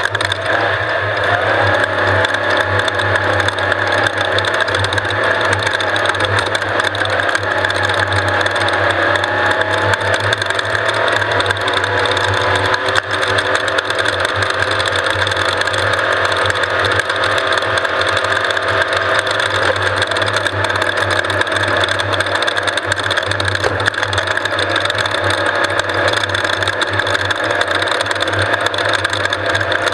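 Off-road race vehicle's engine running steadily under way, with a continuous rattling and clattering over rough ground.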